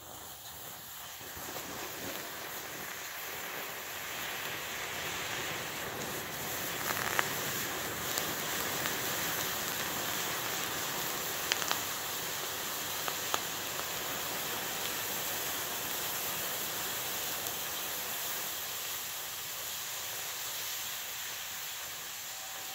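Homemade black powder mixed with sugar and aluminium powder burning with a steady hiss that builds over the first few seconds, broken by a few sharp pops about seven, eleven and thirteen seconds in. It burns slowly rather than going off with a bang, the result of a mix made without weighing.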